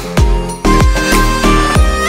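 Electronic background music with a repeating deep bass beat whose notes slide down in pitch, under held higher notes.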